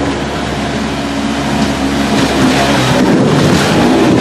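Off-road vehicle engine running at a steady pitch, then revving with a rougher, slightly louder sound from about halfway through.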